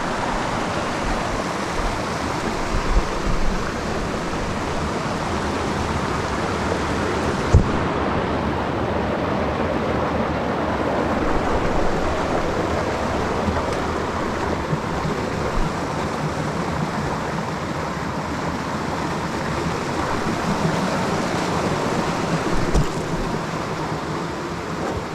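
Rushing water of a mountain waterfall, a steady, loud roar. A single short knock about a third of the way in.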